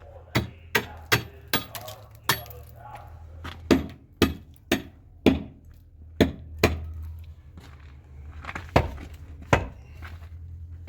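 Repeated hammer blows, about fifteen sharp strikes at an uneven pace with a short pause in the second half, over a steady low hum.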